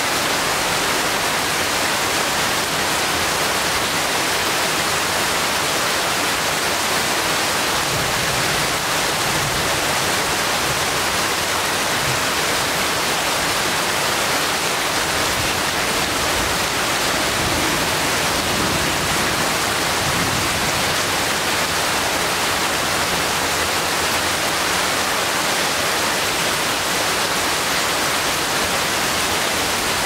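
Steady rain falling on forest foliage, an even, unbroken hiss.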